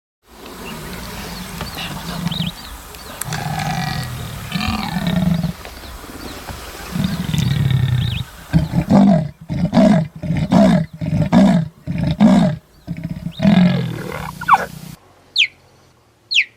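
Big cat roaring: several long, deep roars, then a series of short grunting roars that slow and fade out.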